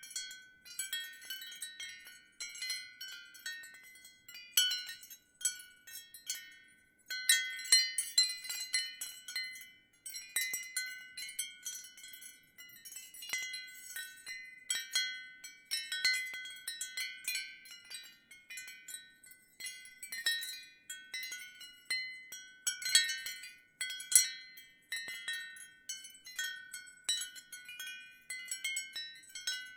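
Ceramic wind chime tinkling in the wind: many light, high-pitched strikes in irregular clusters, each ringing out briefly.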